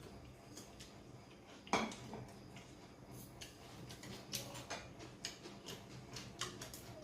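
Eating sounds: irregular small clicks and smacks from a person chewing and handling utensils and dishes, with one louder knock about two seconds in.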